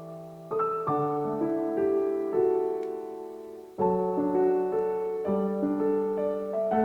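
Background piano music: gentle held chords that fade and are struck again.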